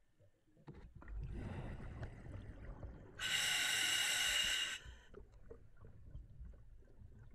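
A scuba diver breathing through the regulator of a full face mask. A rush of noisy exhaled bubbles comes about a second in, then a loud hissing inhalation of about a second and a half, starting about three seconds in.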